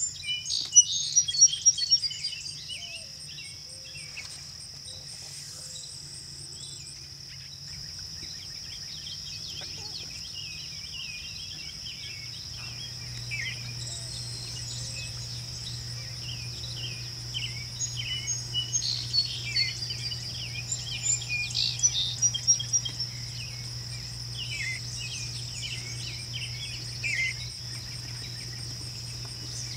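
Steady high-pitched insect drone, with bursts of short, sharp songbird chirps and calls over it, busiest about a second in and again around twenty seconds in. A faint low hum runs underneath.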